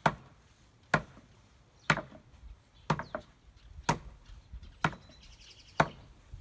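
Hammer blows on wood in a steady rhythm, about one strike a second, seven in all.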